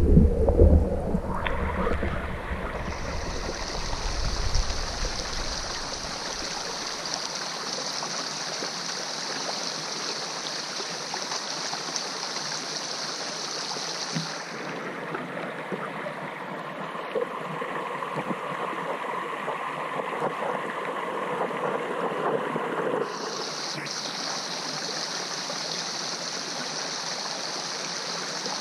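Small stream's flowing water heard underwater through a GoPro housing, a steady rushing and gurgling. There is a heavy low rumble over the first few seconds, and a high hiss that drops away for about eight seconds in the middle and then returns.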